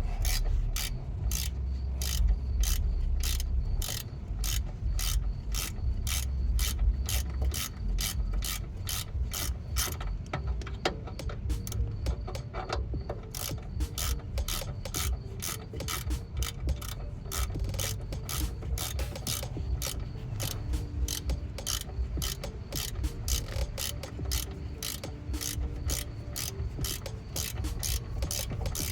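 Hand ratchet clicking steadily, about three clicks a second, as a T55 Torx bit backs out a front brake caliper bolt.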